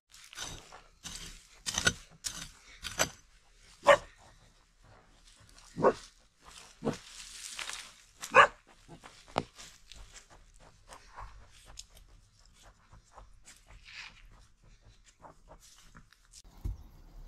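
A dog barking in short loud bursts, mixed with the chopping and scraping of a short-handled hoe working loose, stony soil. The sharp sounds come thickest in the first ten seconds, then thin out to faint scattered knocks.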